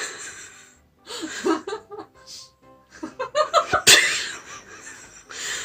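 A person laughing off camera in several uneven bursts, with a sharp click about four seconds in.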